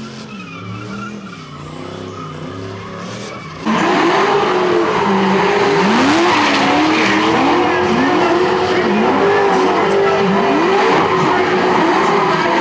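Performance car spinning its tires at high revs: the engine climbs in pitch again and again over screeching tires. It gets suddenly much louder about four seconds in.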